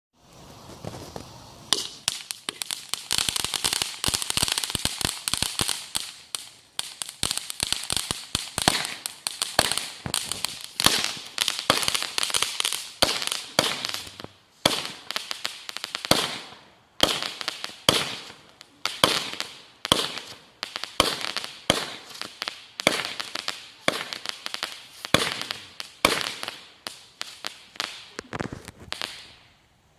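Consumer fireworks going off at close range: a long, dense run of sharp crackles and pops over a hiss. It starts about two seconds in and stops just before the end.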